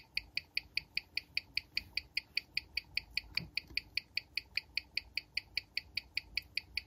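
Even ticking of an FE 233-69 mechanical watch movement on a timegrapher, five ticks a second at 18,000 beats per hour, as the watch is measured in the crown-up position.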